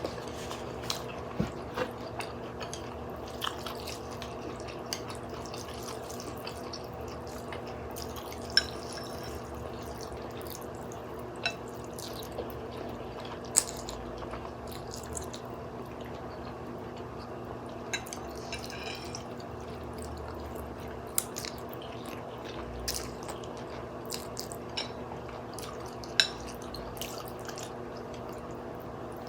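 Small wet mouth clicks and smacks of someone eating noodle soup, scattered irregularly over a steady low hum.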